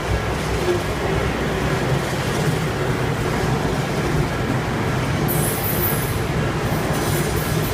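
Odakyu Line electric train running past with a steady heavy rumble, and a short high-pitched squeal about five seconds in.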